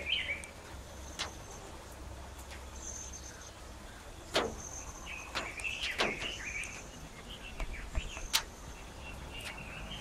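Birds chirping, with short high repeated calls and a few sharp clicks, over a steady outdoor background rumble.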